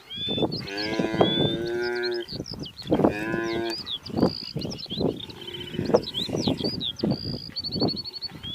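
Wildebeest bellowing: a long, low mooing call, then a shorter one, followed by short grunts. Birds chirp and trill throughout.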